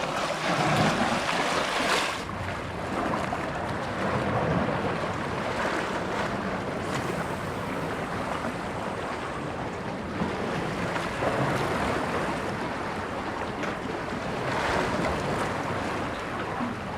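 Sea waves washing against the shore, with wind blowing across the microphone; the wash swells and eases as the waves come in.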